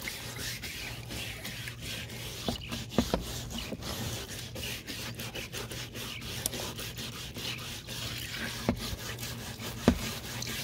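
Stiff hand scrub brush scrubbing a wet, rusty steel chainsaw bar in white vinegar, a steady back-and-forth scrubbing with occasional light knocks. The rust, softened by an overnight vinegar soak, is coming off under the bristles.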